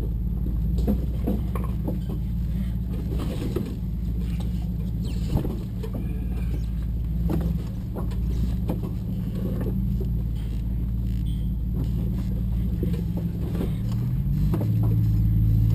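A Jeep Wrangler JK's 3.8-litre V6 engine drones steadily from inside the cabin as the Jeep crawls over a rough dirt trail, with scattered knocks and rattles from the body and suspension. The revs rise slightly near the end.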